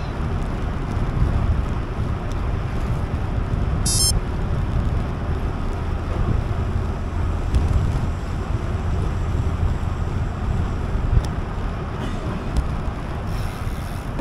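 Wind rushing over the microphone of a moving bicycle, a steady low rumbling noise. About four seconds in there is a brief high-pitched chirp.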